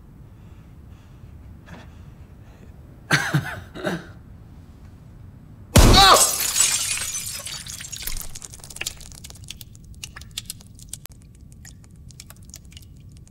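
A sudden loud crash of shattering glass about six seconds in, followed by scattered small tinkles and clicks of falling fragments that die away over the next few seconds. A couple of short voice-like sounds come shortly before the crash.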